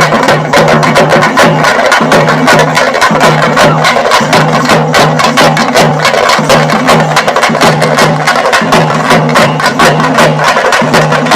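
Loud percussion-driven music: rapid sharp drum strokes over a low note that pulses in a steady repeating beat.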